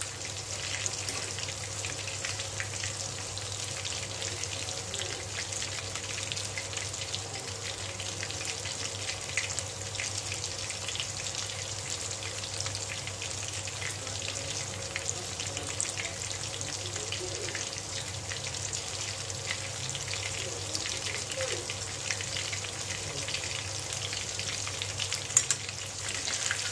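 Battered chicken pakoras deep-frying in hot oil in a steel kadhai: a steady sizzle full of small crackles and pops. A metal spatula moves them now and then, with one sharper knock near the end.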